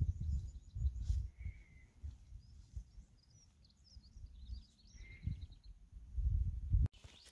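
Wind gusting on the microphone in low rumbles, loudest at the start and again near the end. Small birds sing high chirps in between, with a short rapid trill about four to five seconds in.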